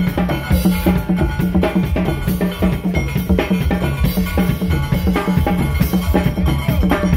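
Steel band playing: steelpans over a drum kit keeping a steady, driving beat, with a strong bass underneath.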